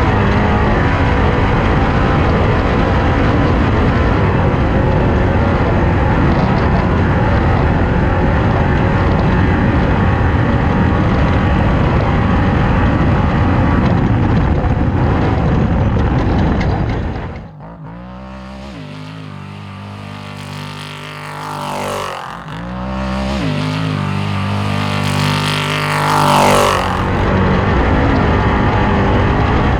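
Race car engine running hard at full throttle. About two-thirds of the way through it drops off suddenly to a lower note, rising and falling in pitch a few times. It comes back up to full power near the end.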